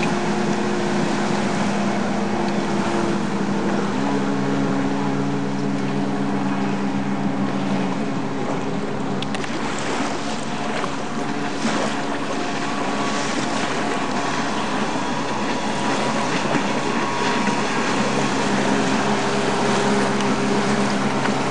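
Yamaha WaveBlaster personal watercraft's two-stroke engine running at speed, its pitch stepping up and down as the throttle changes, over the hiss of water spray from the hull.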